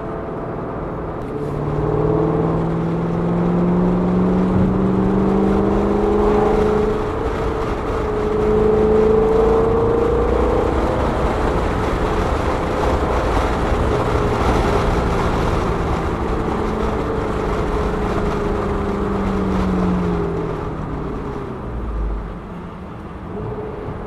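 Shelby GT500's supercharged V8 heard from inside the cabin while driving. The engine note climbs in pitch over the first several seconds as the car accelerates, holds at cruise, then drops away near the end as it slows, over steady road and tyre noise.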